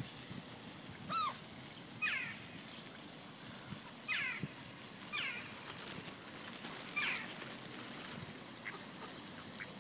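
A duck calling: about five short, hoarse calls that slide downward in pitch, a second or two apart, then two fainter short calls near the end.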